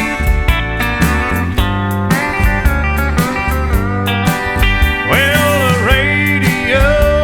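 Country background music with a steady drum beat and guitar, with gliding, sliding guitar notes in the second half.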